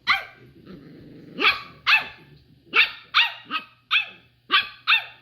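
A dog barking, about nine short, sharp yaps, several in quick pairs, with a low growl between the first two barks.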